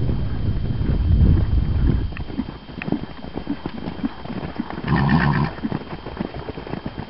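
Unshod Appaloosa horses and a Breton draft horse galloping on grass: a rapid drumming of hoofbeats, heaviest in the first two seconds. One horse gives a short neigh about five seconds in.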